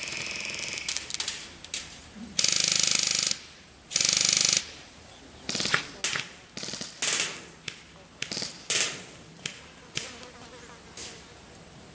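Airsoft guns firing full-auto: two loud bursts of rapid clicking buzz, each well under a second long, then a run of shorter bursts and single shots.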